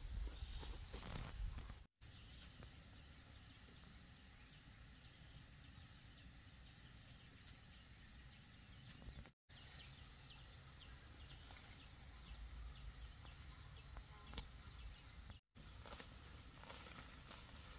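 Near silence: faint outdoor ambience with scattered light ticks, cut out completely three times for a moment.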